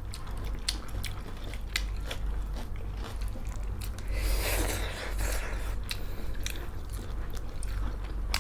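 Close-miked chewing and biting of pork chilli, with scattered wet mouth clicks and a louder noisy stretch about four seconds in.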